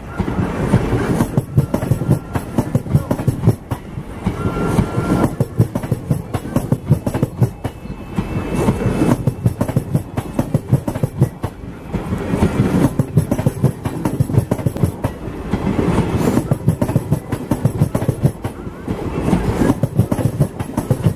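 Coaches of the Mumbai–Bijapur Fast Passenger train rolling past close by, their steel wheels clattering rapidly over the rail joints. The clatter swells and eases in regular waves every few seconds as each coach's bogies go by.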